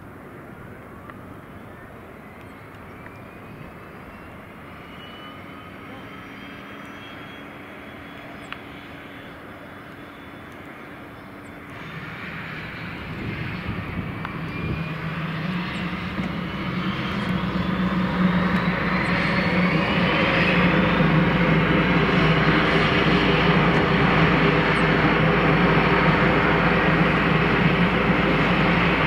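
Cessna 208 Caravan's Pratt & Whitney PT6A turboprop engine starting up. A thin whine climbs steadily as the starter spins the engine up. About twelve seconds in, the engine catches and the sound swells over several seconds into a steady, loud turboprop run with the propeller turning.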